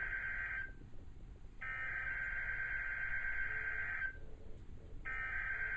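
NOAA Weather Radio SAME header: screechy digital data bursts sent three times. One burst ends just after the start, a full burst of about two and a half seconds follows, and the third begins about five seconds in, with roughly a second's gap between bursts. It is the coded header announcing the routine weekly test.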